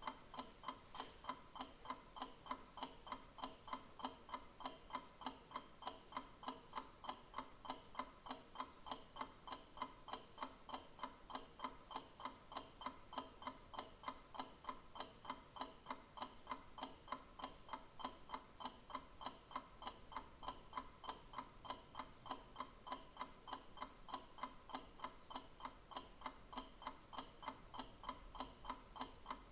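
A clock ticking steadily, with quick, even ticks that keep a regular rhythm.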